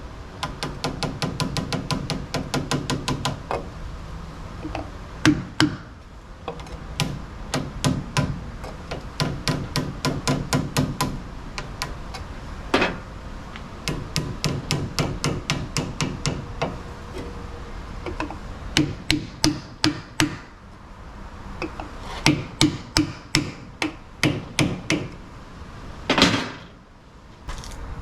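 Hammer blows on a seal installer, driving a new axle seal into a Dodge Ram 1500's axle housing. The blows come in quick runs of several a second with short pauses, each hit with a metallic ring, and one longer, heavier hit comes near the end.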